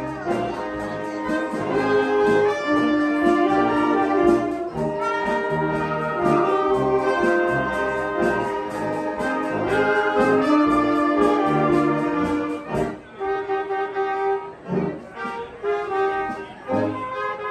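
Community concert band of brass and saxophones playing a medley of TV theme tunes, in full sustained chords. About thirteen seconds in, the texture thins to shorter, detached notes with brief gaps between them.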